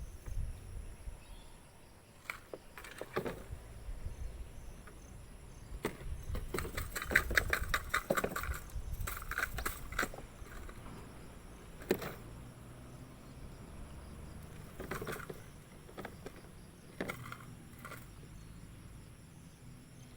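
Outdoor lakeside ambience with low wind rumble on the microphone, scattered sharp clicks and knocks, and a brief run of rapid clicks about seven seconds in.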